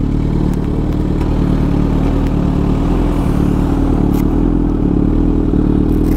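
Superbike engine running at a steady, even speed without revving. Two short clicks come about four and six seconds in.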